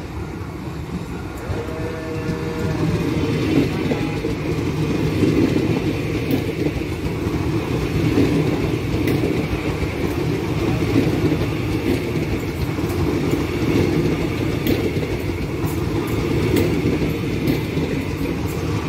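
Soekarno–Hatta airport rail link electric multiple unit (KRL Bandara Soetta) passing at close range. Its wheels give a steady rumble on the rails that grows louder over the first few seconds as the train draws near, with sharp clicks as the wheels run over the track.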